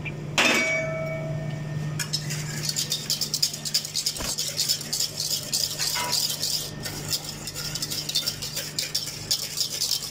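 A metal utensil clanging once against a pot with a brief ringing, then stirring rapidly in an aluminium saucepan of thin sauce, clinking and scraping against the metal in a fast, continuous rattle.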